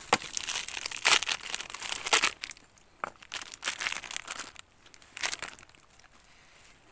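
Plastic packet crinkling and being torn open by hand, in a few rustling bursts that fade out in the last couple of seconds.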